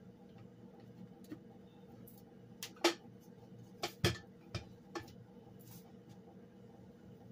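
Several short, sharp clicks and knocks from handling a crock pot and its power cord as it is set up, the loudest about three and four seconds in, over a steady low hum.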